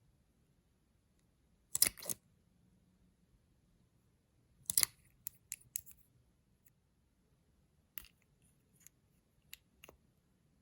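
Short, sharp clicks and snips of makeup and tools being handled for slime mixing. There are about ten of them, spread unevenly, and the loudest come as quick pairs about two seconds and about five seconds in.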